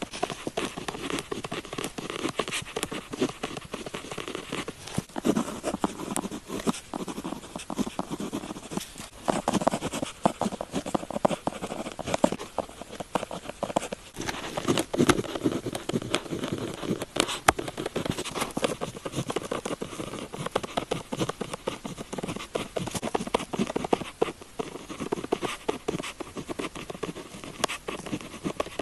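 Pen tip scratching across paper in quick, continuous writing strokes, with many small ticks and scrapes.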